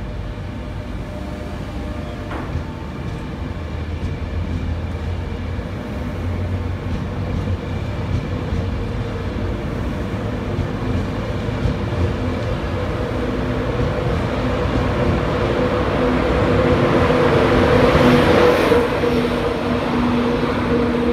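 An InterCity 225 train of Mk4 coaches rolling out along the platform, its Class 91 electric locomotive at the rear coming past near the end. A steady two-tone electric hum and rolling noise grow louder, loudest as the locomotive goes by.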